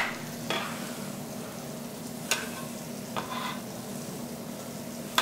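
Faint steady sizzle of apples frying in sugar and butter in a pan. Over it come a few light knocks, about two seconds in and again a second later, as cooked squash is cut on a wooden board and dropped into a blender jar.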